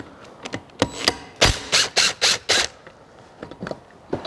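Metal hand tools and parts clinking and knocking as they are handled on a workbench, with a run of about four loud, sharp clacks about a second and a half in.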